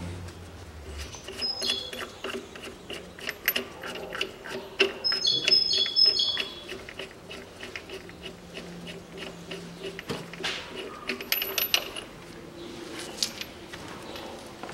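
Metal tools clicking and clinking against the crankshaft pulley of a Toyota Mark II engine as the pulley is worked at for removal. There are runs of quick metallic clicks and a few short ringing clinks.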